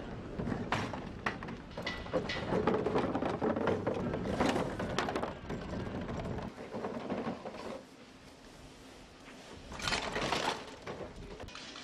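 Irregular knocks, rattles and scrapes of hollow plastic as wheelie bins are rolled and set down and a plastic portable toilet is tipped onto a truck's metal bed. The clatter is busiest early on, dies down about eight seconds in, and flares again about two seconds later.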